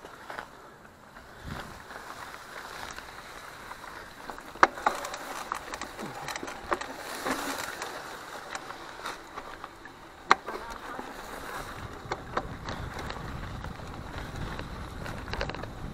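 Mountain bike on a rough trail: rolling tyre noise and rattling, with scattered clicks and two sharp knocks, about five and ten seconds in. A low rumble joins about twelve seconds in.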